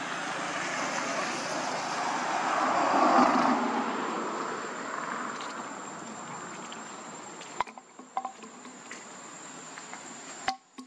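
A road vehicle passing by: its noise swells to a peak about three seconds in and then fades away. A thin steady high insect-like whine runs underneath, and a few sharp clicks come near the end.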